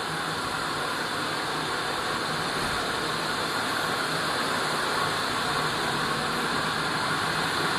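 Steady machine noise of a LAN cable production plant running: an even hiss with a low hum underneath and no distinct strokes.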